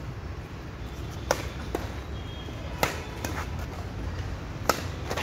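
Badminton rackets striking a shuttlecock in a doubles rally: sharp, short hits, three loud ones about a second and a half apart with fainter ones in between.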